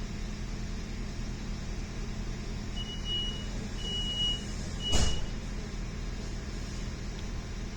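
Steady rumble and hum of a passenger train heard from inside the car. About three seconds in come three high electronic beeps, and right after the last one a single loud thump.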